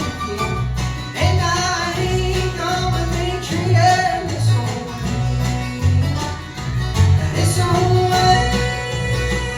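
Acoustic bluegrass band playing: guitar and fiddle over steady, regularly changing bass notes.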